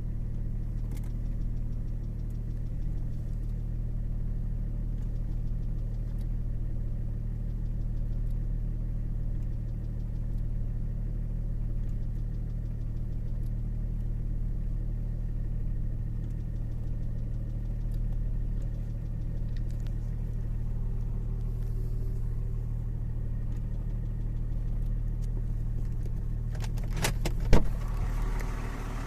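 BMW M51 2.5-litre straight-six turbodiesel idling hot and evenly, without its knock, which goes away with the car parked nose-up. Near the end come a few sharp clicks and one loud clunk.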